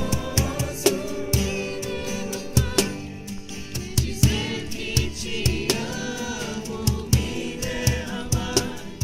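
Worship music: a group singing a Portuguese worship song with guitar, over a steady drum beat.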